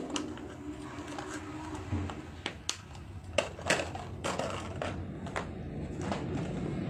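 Irregular clicks and small rattles of bangles and their plastic packaging being handled, as one bracelet is put away and the next is picked out. A low rumble builds in the background near the end.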